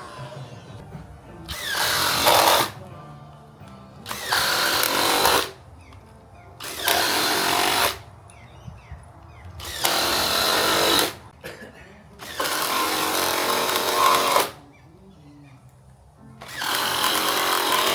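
Power tool, likely a drill or impact driver, driving screws or bolts into hardwood frame timbers in six short bursts of a second or two each, with pauses between them.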